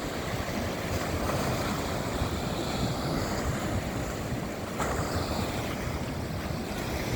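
Steady rushing noise of wind buffeting the microphone, heaviest in the low rumble.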